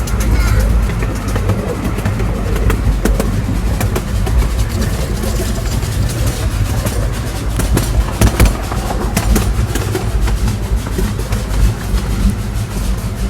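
Ride noise aboard a moving passenger train: a steady low rumble of the cars with irregular clicks and clacks of the wheels on the rails.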